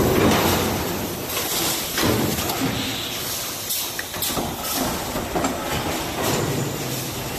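Factory production-line machinery running with a steady hiss and scattered knocks and clanks.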